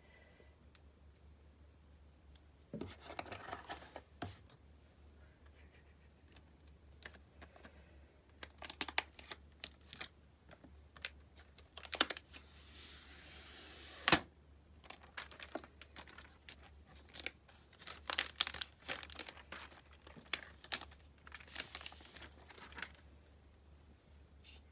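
Protective plastic film being peeled off the back of an iPad: a long tearing rasp midway that ends in a sharp snap, among crinkling and light clicks as the tablet is handled.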